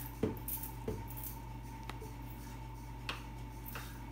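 Plastic rice paddle scooping cooked rice in a plastic food container, with a few short soft knocks and scrapes of the paddle against the container.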